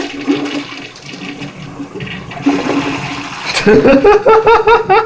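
Toilet flushing, water rushing and gurgling down the bowl. About three and a half seconds in, a person laughs loudly in short, rapid bursts over the flush.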